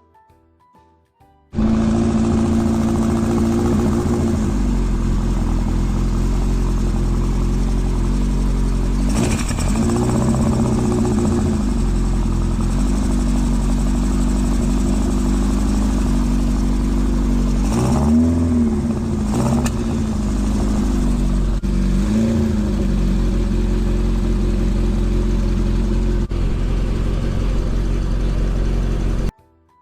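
Kawasaki Z1R's air-cooled inline-four engine running on freshly fitted Keihin CR33 carburettors, with the throttle blipped briefly a few times. It holds a high idle of about 1,500 rpm that the idle screw does not bring down, a sign that the carburettors are still out of adjustment.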